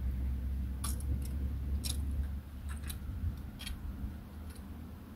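Several short, sharp clicks at uneven intervals, about seven in four seconds, over a low steady rumble that eases off about halfway through.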